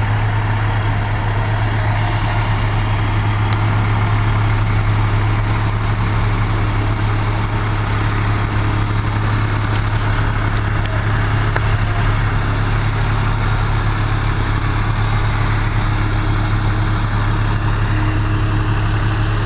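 Ambulance engine idling, a steady low drone as the ambulance rolls slowly past, with no siren.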